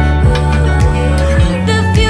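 Background pop/R&B music with a steady kick-drum beat.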